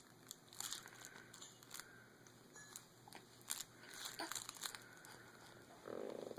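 Faint scattered crinkling and small clicks, with a short low buzz near the end.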